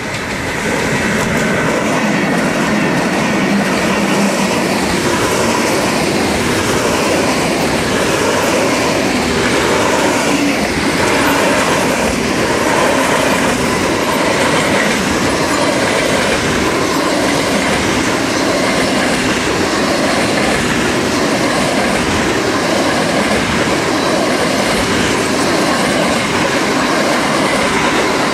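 A freight train of covered sliding-wall wagons passes close by. It is loud from the first second or so, as the locomotive reaches the microphone, and then comes a steady rumble with the rhythmic clatter of wagon wheels over the rails.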